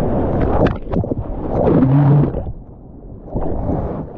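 Seawater rushing and splashing around a helmet- or body-mounted action camera as a surfer paddles into a breaking reef wave, with a short low tone about two seconds in. The sound then goes dull and quieter for about a second as the camera dips into the water, and the rush of whitewater returns.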